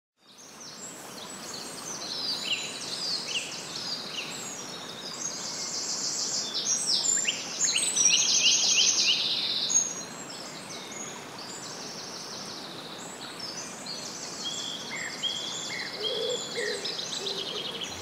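Several songbirds singing at once, with dense overlapping chirps and rapid trills over a steady outdoor hiss. The song is loudest about halfway through and thins out after about ten seconds.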